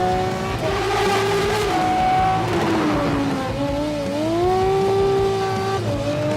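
Aston Martin Vulcan's naturally aspirated 7.0-litre V12 howling at high revs. Its pitch rises, dips suddenly about a second and a half in, falls away around three seconds, then climbs and holds before dropping sharply again near the end.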